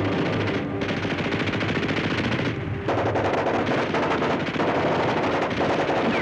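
Sustained automatic machine-gun fire in a rapid, unbroken rattle of shots, letting up briefly a little before the middle: a battle sound-effects track from an old war film.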